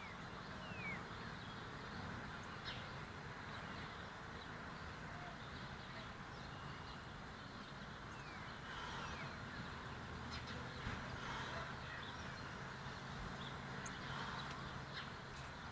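Faint steady low hum, with a few brief high chirps and soft swells of noise.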